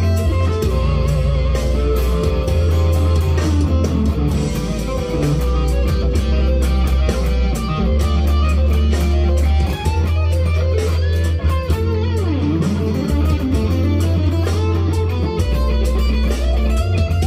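Leo Jaymz SG-copy solid-body electric guitar played through an amplifier: single-note lead lines high up the neck, with a few string bends, over steady low bass notes.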